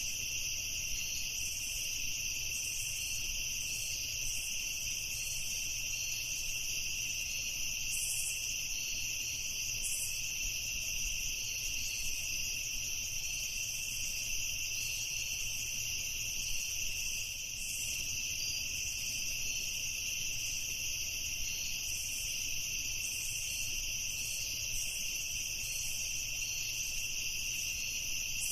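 Crickets chirping steadily in a continuous chorus, the trilling held at two high pitches, with a faint low rumble underneath.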